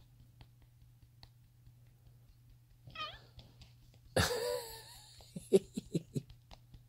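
Grey tabby cat vocalising while it bites and plays with a hand: a short chirp about three seconds in, a louder meow-like call a second later, then a quick run of about six short chirps.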